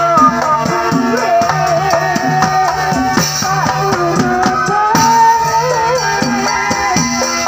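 Live cekeneng street-band music: drums and a cymbal keep a steady, repeating beat under a wavering, sliding melody line.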